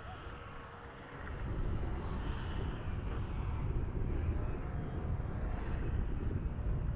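Snowmobile engine running, getting louder about a second in as it comes closer, then holding steady and loud.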